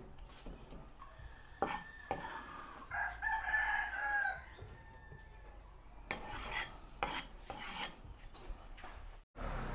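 A cleaver knocking and scraping on a wooden chopping board as minced garlic is gathered up, in a run of short sharp strokes that is densest in the second half. A rooster crows in the background about three seconds in, louder than the knife.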